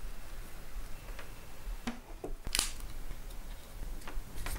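Faint clicks and handling noise of a USB cable being uncoiled and its plug fitted into the 3D scanner's port, with one sharper click about two and a half seconds in.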